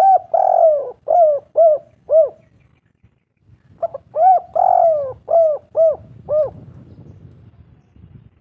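Spotted dove cooing in two phrases. Each phrase is a quick run of short, arched coos around one longer, falling coo, and the second phrase starts about three and a half seconds in.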